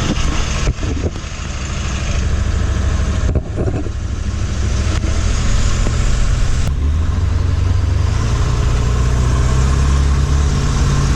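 Ford Super Duty's 7.3-litre Power Stroke turbo-diesel V8 running as the truck is driven, with short dips in the engine sound about a second in and again near three and a half seconds, and a heavier low drone later on.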